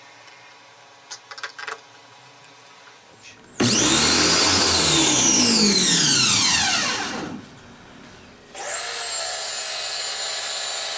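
A few faint clicks, then the Kärcher K2 pressure washer's electric motor starts loud and its whine falls steadily in pitch for about three seconds before it stops. About a second later it runs again with a steady, even tone. The motor is running on freshly fitted carbon brushes.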